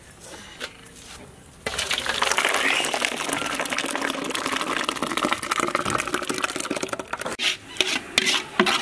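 Thick, boiled moong dal being poured from its cooking pot into a large metal vessel: a wet, heavy pour that starts suddenly about two seconds in and runs for about five seconds. A few knocks follow near the end.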